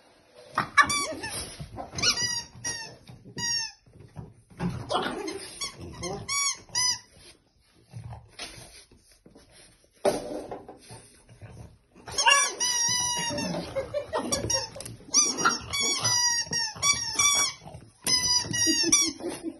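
Rubber squeaky toy elephant squeaking again and again as a French bulldog puppy bites and chews it. The short rising-and-falling squeaks come in runs, with rougher low noises from the dog between them.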